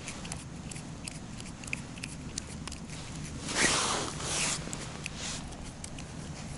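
Handling noises: scattered faint clicks and two brief rustles, the louder one about three and a half seconds in, as the angler's jacket and small ice-fishing rod are moved.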